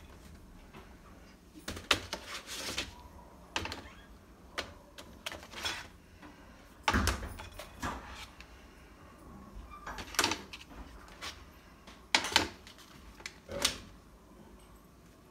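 Thin plastic panels of a stackable cube organiser being handled and moved against each other: irregular knocks, clicks and scrapes.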